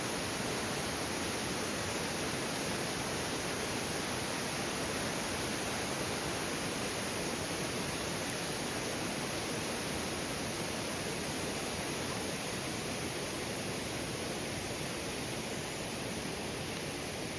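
Waterfall: a steady rush of falling water, dropping a little in level about twelve seconds in.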